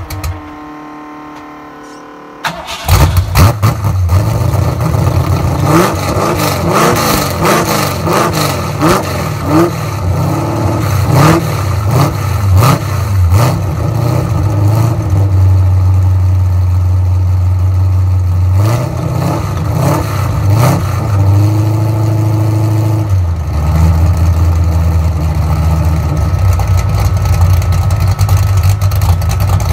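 1988 Ford Mustang engine on a cold start: it drops to a low, weak running at first, then catches loudly about three seconds in. It is then revved in repeated sharp blips, rising and falling, before settling to an uneven idle with a few more blips.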